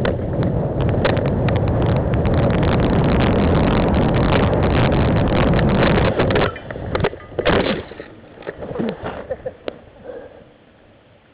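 Mountain bike descending a dirt trail, heard close up: wind rush and tyre rumble with a steady run of rattling knocks. The noise cuts off suddenly about six and a half seconds in, and a few separate knocks follow as things go quieter.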